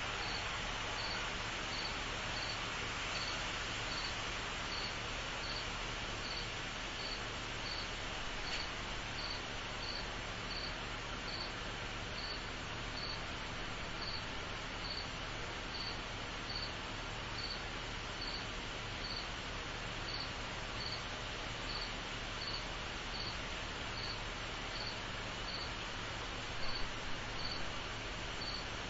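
Outdoor insect chorus: a cricket chirping in a steady, even rhythm, about three high chirps every two seconds, over a dense, continuous insect hum. A few short louder noises come near the end.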